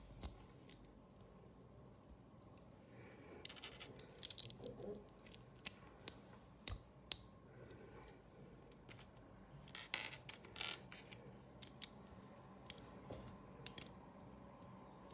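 Plastic LEGO bricks clicking and clattering as they are handled, pressed together and set down on a hard tabletop. The clicks are short and sharp, with busier flurries about four seconds in and again about ten seconds in.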